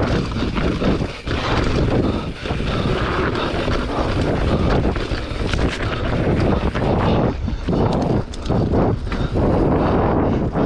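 Enduro motorcycle engine running hard under throttle, with a few brief dips in between, and wind buffeting the microphone.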